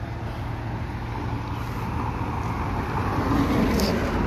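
Motor vehicle engine running close by, its noise slowly getting louder over the few seconds.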